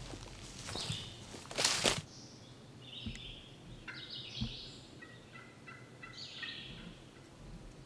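Footsteps crunching through dry leaf litter for about two seconds. Then a wild turkey gobbles several times, fainter.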